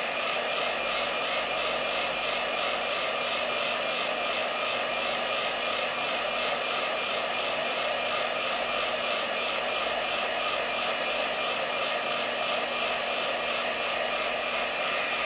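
Handheld iTeraCare wand's internal fan whirring steadily and evenly, on the lowest speed setting.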